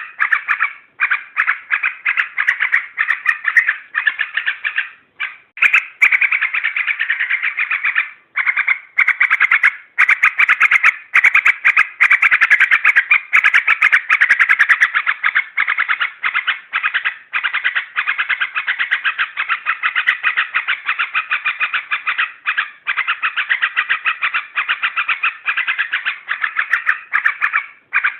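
Yellow-vented bulbul (trucuk) calling in fast, chattering strings of notes broken by short pauses. This is a lure call played to excite a caged bird into singing or to draw in wild ones.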